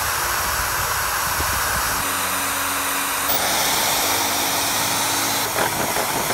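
Electric drill running steadily as it bores holes into a pine board, its sound changing a couple of times as the bit works through the wood.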